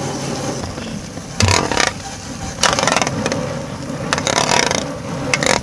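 Spatula scraping and turning fried rice in a large pan, in repeated scraping strokes roughly every second and a half.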